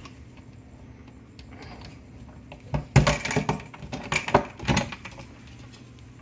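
Metal drop pull on a wooden cabinet door rattling and clinking as the door is worked open, a quick run of sharp clicks and clatters starting about three seconds in and lasting about two seconds. A faint low hum runs underneath.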